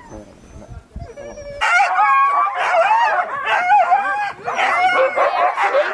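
Many sled huskies barking, yelping and howling at once in a loud, overlapping chorus that starts suddenly about a second and a half in.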